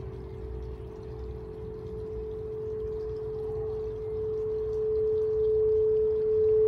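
Frosted quartz crystal singing bowl played with a mallet at its rim, sounding one steady pure tone that grows louder.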